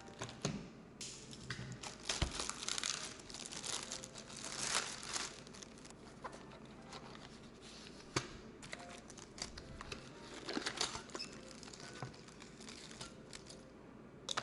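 Packaging being handled: irregular crinkling and rustling in several bursts, with a few sharp clicks in between.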